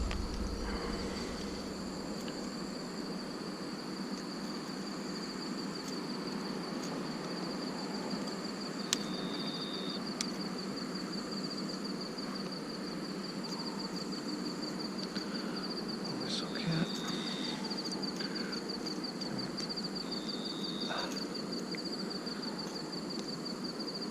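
Night insects, cricket-like, trilling in a steady high, rapidly pulsing note, with a second short call from another insect breaking in three times.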